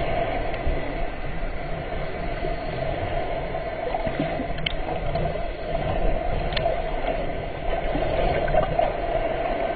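Muffled underwater sound from a camera in the sea: a steady watery rush, with a couple of faint clicks near the middle.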